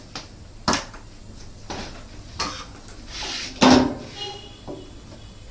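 Small hard parts of a washing machine's water inlet valve being handled: a few sharp clicks and knocks, the loudest a little before four seconds in.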